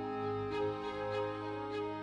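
Slow, sad background music of sustained strings, the notes changing gently every half second or so.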